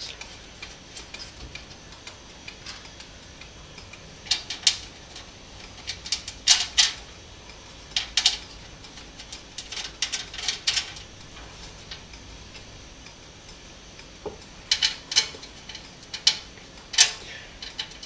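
Small sharp metallic clicks and ticks in scattered short clusters as motherboard standoffs are screwed by hand into the threaded holes of a steel PC case.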